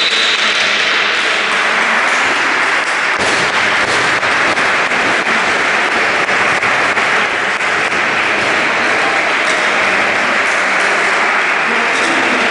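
Crowd applauding steadily, a dense run of clapping.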